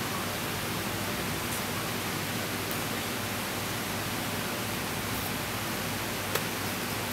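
Steady hiss of background noise, with one light click near the end.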